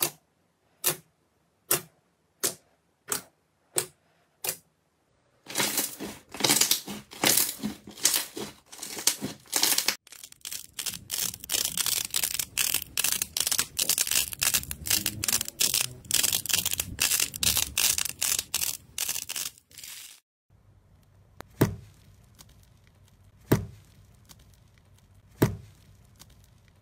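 Slime being squeezed and pressed by hand: first a run of sharp pops about one every 0.7 s, then dense crackling and crinkling for over ten seconds, then three single loud pops about two seconds apart near the end.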